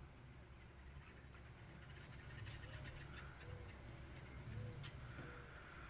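Faint outdoor ambience of insects, crickets trilling steadily at a high pitch, with a soft low rumble underneath.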